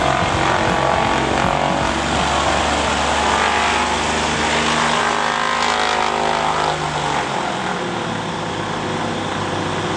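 Cessna 182's piston engine and propeller running at taxi power as the plane rolls close past. Its pitch slides down in the middle as it goes by, and about seven seconds in the deep part of the engine sound falls away as it moves off.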